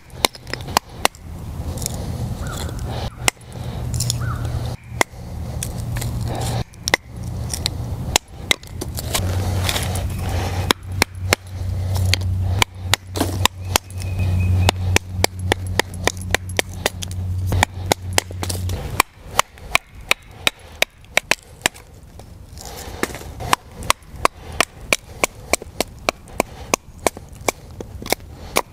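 Batoning: a wooden baton striking the spine of a fixed-blade knife to drive it through short pieces of wood on a stump, splitting kindling. Sharp knocks, spaced a second or more apart at first, then coming in quick runs of two or three a second in the second half.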